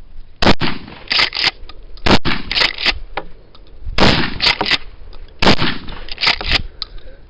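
Norinco HP-9 12-gauge pump-action shotgun firing buckshot: four shots about one and a half seconds apart. Between the shots comes a quick pair of sharp clacks as the pump is racked back and forward.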